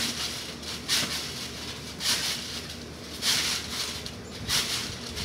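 Trampoline being bounced on: its mat and springs give a hissing, rustling burst with each landing, about one bounce a second in a steady rhythm.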